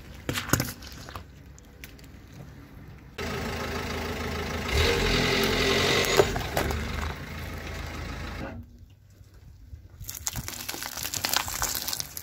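Car tyre rolling over and crushing things one after another: a short sharp squash of oranges about half a second in, a few seconds of loud crushing as it presses down on a cardboard phone box in the middle, and crackling foil-wrapped sweets near the end.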